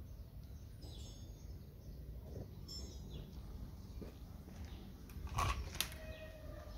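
Faint bird chirps over a low background rumble, with two sharp clicks close together about five and a half seconds in.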